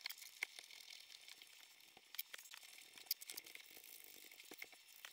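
Near silence with a few faint, scattered light clicks and clinks from hands shifting a loosely bolted cast exhaust manifold on a two-stroke twin engine.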